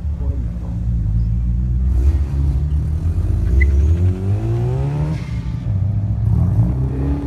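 Mazda rotary-engined cars moving at low speed, their engines running with throttle blips. One engine revs up from about three and a half seconds in and drops back about a second and a half later.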